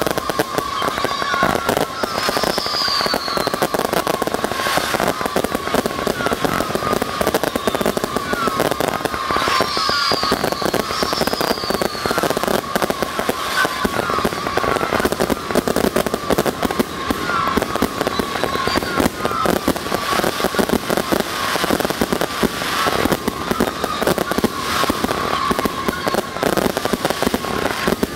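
Consumer aerial firework cakes firing a finale: a rapid, unbroken barrage of shot launches and bursts. A wavering high tone runs underneath, and a few falling whistles come through.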